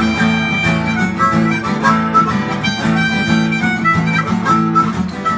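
Band music: a harmonica plays a melody over strummed acoustic guitar and drums, in a country or southern-rock style.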